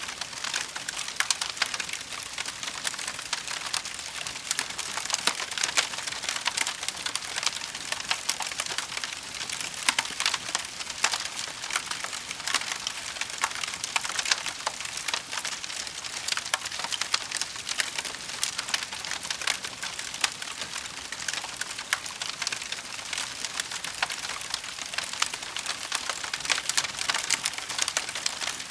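Wood fire in a fireplace crackling: a dense, unbroken run of small pops and snaps over a soft hiss.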